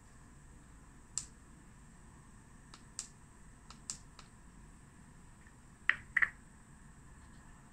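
Small sharp clicks and taps from handling a plastic lens demonstration kit: a few scattered single clicks, then a louder cluster of two or three taps about six seconds in as a loose lens is set down on the board. A faint steady high-pitched hiss runs underneath.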